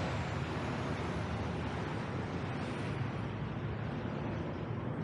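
Steady city street traffic noise: the rumble and hiss of passing road vehicles.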